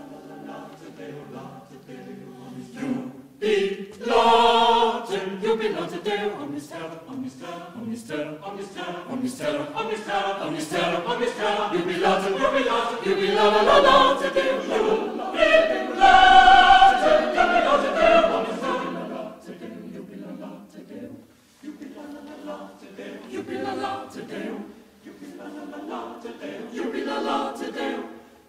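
Mixed choir singing a cappella, a motet for double choir. The choir enters loudly a few seconds in, swells to its loudest around the middle, then falls back to quieter singing.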